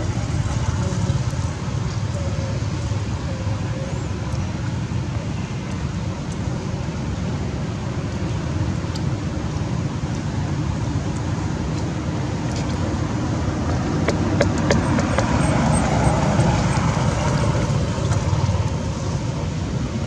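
Steady low outdoor background rumble with a few faint clicks. It swells for a few seconds about three-quarters of the way through.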